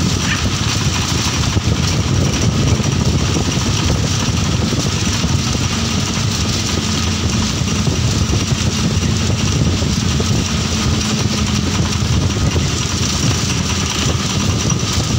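Steady engine and road rumble from inside a moving vehicle, even and unbroken, with a faint steady hum in the middle of it.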